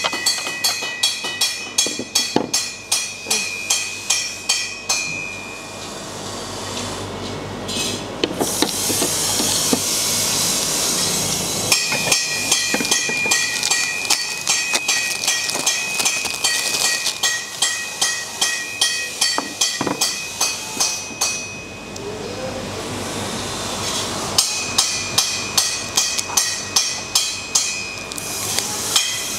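Forging hammer blows on steel, about two to three a second, each with a ringing note. The hammering stops twice for a few seconds, first for a hissing noise and later briefly, then starts again.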